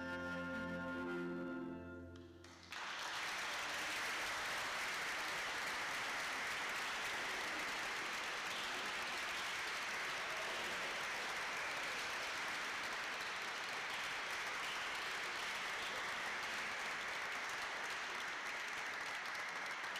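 An instrumental ensemble with flute, oboe, clarinet and trumpet holds its final chord, which dies away about two seconds in. Then audience applause fills the rest, steady and dense, for the closing bows.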